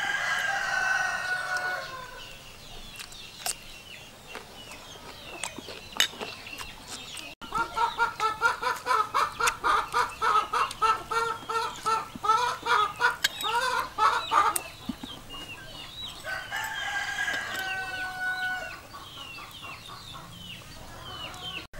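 Rooster crowing, once near the start and again near the end, each a long held call. In between, a chicken clucks rapidly and repeatedly for several seconds.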